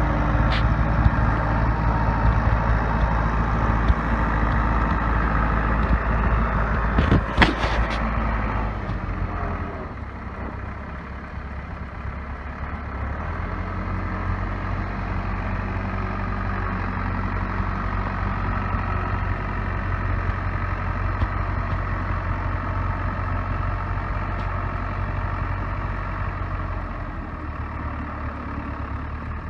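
Case 580B backhoe's four-cylinder diesel engine running steadily. A few sharp knocks come about seven seconds in, after which the engine note drops and settles at a different steady speed.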